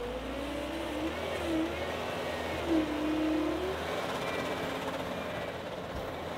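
John Deere skid steer loader's diesel engine running and revving under load while digging, its pitch rising and falling. The low drone and the loudest tone drop out about four seconds in.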